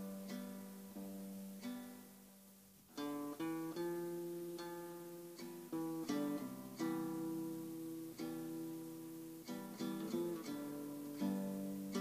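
Classical nylon-string guitar played fingerstyle in an improvised passage of plucked notes and chords. About two seconds in, a chord is left to ring and fade before the playing picks up again.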